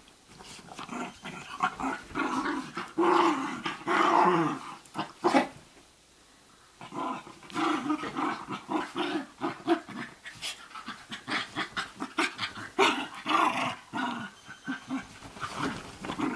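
Small dogs, a Basenji among them, play-growling while they wrestle, in wavering runs of growls mixed with short scuffling clicks. The growling stops for about a second a little before the middle, then starts again.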